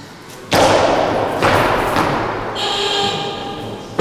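Weightlifting jerk: a heavy thud about half a second in as the lifter's feet land on the platform, then sustained noise from the hall with a brief steady tone around three seconds in. A second heavy thud comes right at the end as the loaded barbell with rubber bumper plates is dropped onto the platform.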